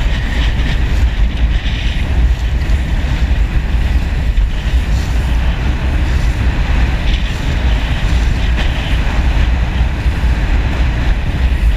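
Steady wind rumble buffeting the microphone aboard a sailboat under way, with the hiss of water rushing past the hull.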